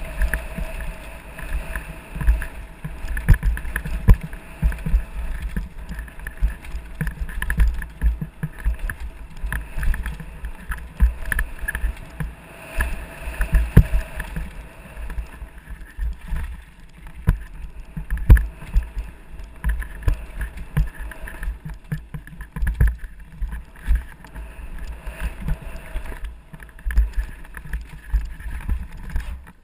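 Downhill mountain bike riding fast over a rough dirt trail: a constant rumble and rattle of tyres and bike over roots and rocks, with frequent sharp knocks from the bike as it hits bumps.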